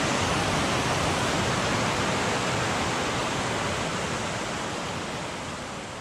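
River rapids rushing over rock ledges: a steady roar of water that fades gradually over the last few seconds.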